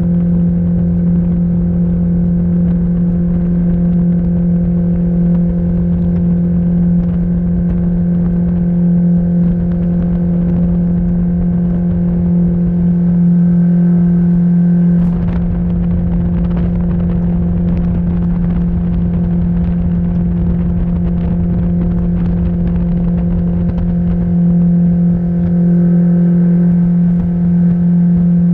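Mercury 60/40 jet outboard pushing a 1756 Blazer aluminium boat at a steady cruise of about 28 mph: a constant engine drone over rushing water and wind rumble. The engine note shifts slightly about halfway through.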